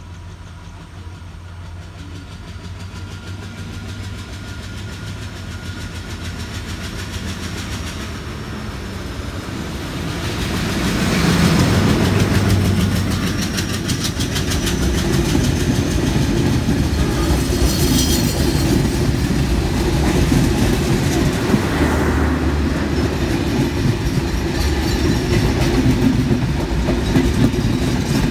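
A diesel-hauled Bangladesh Railway intercity passenger train approaches, growing steadily louder. Its locomotive's engine passes close by about eleven seconds in, and its coaches then run past for the rest of the time with a steady rattle of wheels on the rails.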